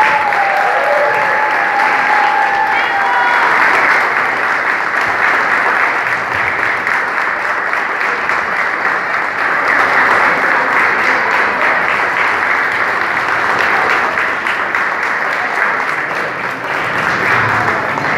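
Audience applauding steadily. A single held high note sounds over the clapping for the first three seconds.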